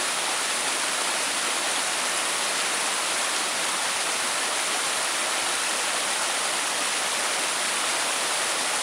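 Shallow rocky creek running fast over stones and small drops: a steady, even rush of water.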